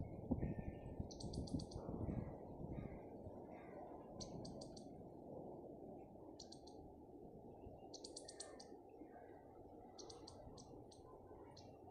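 Small birds chirping: short, high, rapid trills of three to six notes repeat every second or two, with softer, lower chirps between them. Under them runs a low rumble, louder in the first two seconds.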